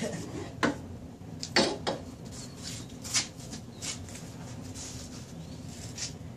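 Metal clanks and clinks of car front-suspension parts and hand tools being handled and set down on a concrete floor: a handful of short, sharp knocks, two of them close together about a second and a half in, over a steady low hum.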